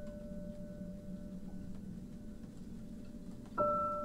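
Ambient soundscape music: a held, fading bell-like tone over a low rumble with faint ticking, then a new bell-like note struck near the end.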